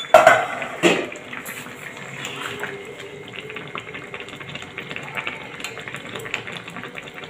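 Thick curry bubbling in an aluminium kadai as it simmers, with a metal spatula stirring through it. Two sharp metal clanks in the first second.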